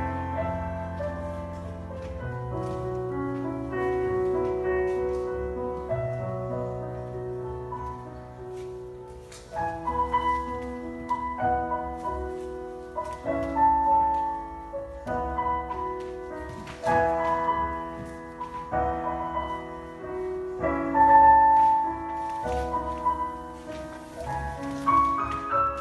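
Classical-style solo piano music: slow, held notes at first, turning livelier with more distinctly struck notes about ten seconds in.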